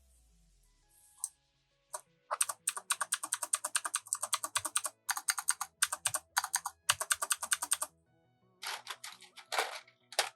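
Fast typing on a computer keyboard fitted with Razer PBT keycaps: a dense run of rapid key clicks with a short break, then a few more keystrokes near the end. Quiet background music runs underneath.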